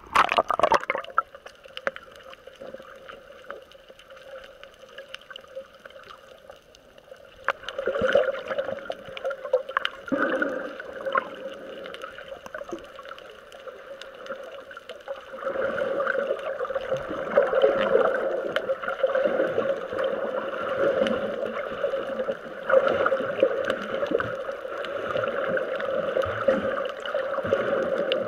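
Water sloshing and splashing over a camera at the surface as it dips under, then muffled underwater water noise through the camera housing, swelling and fading as the camera moves through the water.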